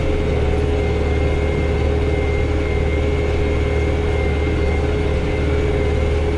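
Tractor's diesel engine running steadily at working speed, heard from inside the cab: a constant low drone with a thin, steady high whine over it.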